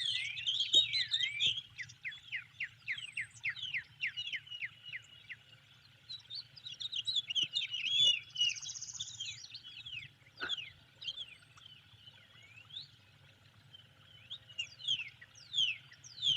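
Several songbirds singing and calling, with a fast series of falling whistled notes, about four a second, over a steady low hum.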